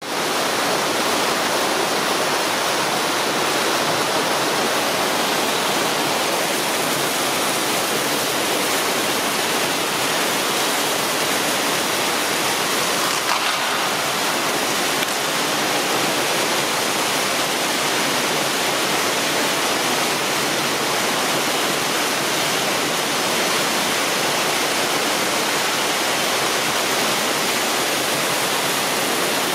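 Small water cascade spilling down the side of a stone planter, a steady, even rush of falling and splashing water.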